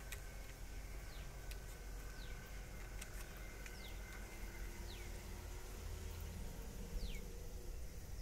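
Short high chirps, each falling in pitch, repeated about once a second over a low steady background hum: the call of a small animal or bird.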